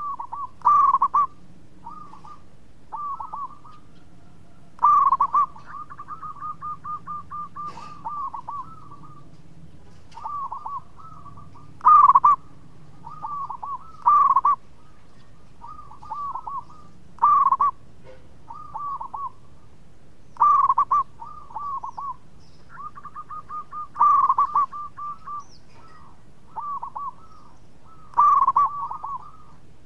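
Zebra dove (perkutut) cooing: phrases of quick staccato coos, repeated every few seconds. Each phrase opens with a loud note, and twice a phrase runs on into a long rapid string of short notes.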